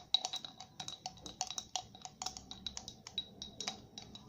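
A utensil stirring white school glue in a bowl, tapping and clinking against the bowl's side in quick, irregular clicks with a short ringing.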